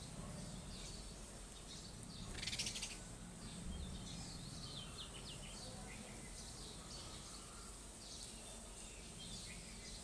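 House sparrows chirping in short, scattered calls over a steady faint background hiss, with a brief rustling burst about two and a half seconds in.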